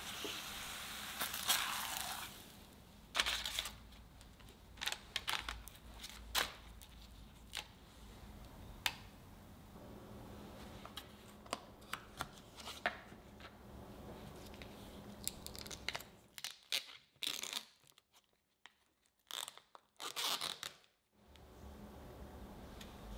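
A plastic mascarpone cheese tub being opened by hand: the lid is prised off and the seal peeled away, heard as a series of short crackles, snaps and tearing sounds. The first couple of seconds carry a faint sizzle of a crepe cooking in a pan.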